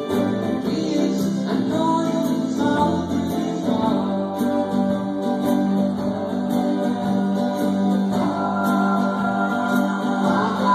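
A live band playing through a sound check: strummed acoustic guitar with singing.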